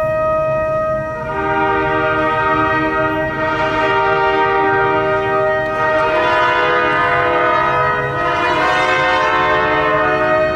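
Symphony orchestra playing long sustained chords, brass to the fore, in the reverberant space of a cathedral. A new, fuller chord swells in about a second in, and the harmony shifts again around the middle and near the end.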